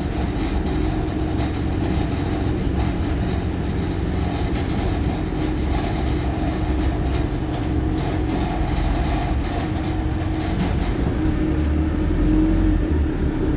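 Wright StreetLite single-decker bus heard from inside while driving: a steady low drone of diesel engine and road noise, getting a little louder near the end.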